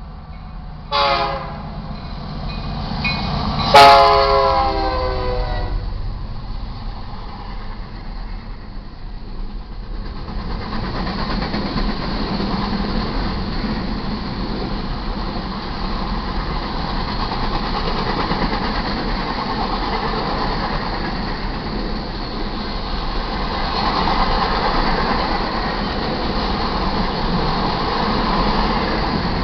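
Freight train horn on an EMD SD70MAC locomotive: a short blast about a second in, then a louder, longer blast about three seconds later. The horn gives way to the steady rumble and clatter of grain cars rolling past on the rails.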